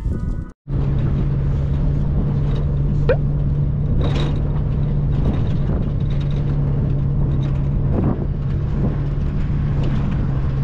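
Motorboat engine running at a steady speed, a constant drone. There is a brief rising squeak about three seconds in.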